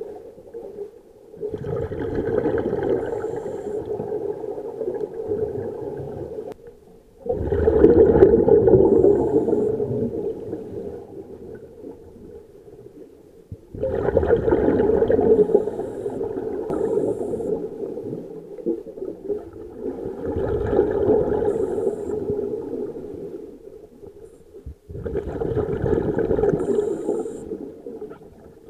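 Scuba regulator exhalations heard underwater: five bursts of bubbling, each a few seconds long, coming roughly every six seconds in a breathing rhythm, with quieter stretches between.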